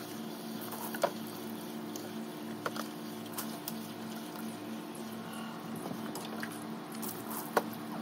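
Water splashing and dripping as a dog is washed by hand from a tub of water, with scattered small splashes and wet squishing of the soaked coat over a steady low hum.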